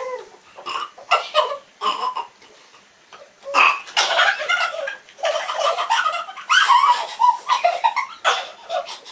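Girls laughing in fits of giggles, short bursts at first, then louder and near-continuous from about three and a half seconds in.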